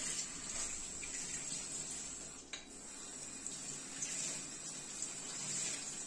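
Kitchen tap water running steadily into a stainless steel sink while hands scrub the basin with a sponge. There is a brief break with a click about halfway.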